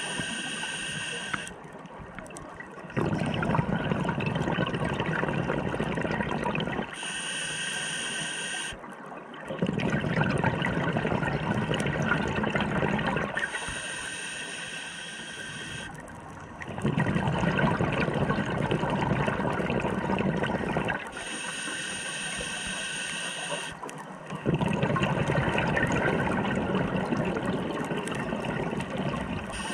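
Scuba diver breathing through a regulator underwater: a short hissing inhale through the demand valve, then a longer, louder rush of exhaled bubbles, repeating about every seven seconds.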